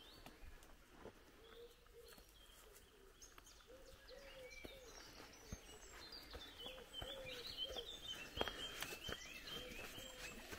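Faint songbirds chirping and calling in woodland, busier in the second half. Scattered sharp clicks of footsteps and trekking poles on the trail run through it.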